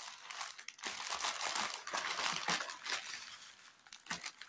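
Plastic crinkling and rustling as a plastic courier mailer is opened and a kurti in a clear plastic wrapper is slid out of it. The crinkling is dense for the first three seconds, then thins to a few scattered crackles near the end.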